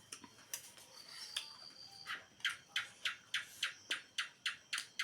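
Crunchy chewing close to the microphone: a steady run of sharp crunches, about three to four a second, starting about two seconds in.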